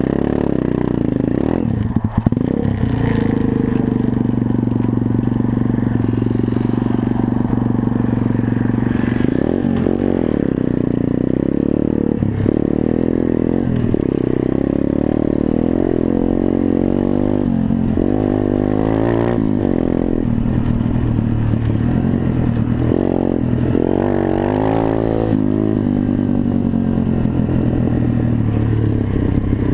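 A Welsh Pit Bike 125cc single-cylinder four-stroke engine running under way. Its pitch rises and falls as the throttle is opened and closed, with several quick rises and drops in the second half.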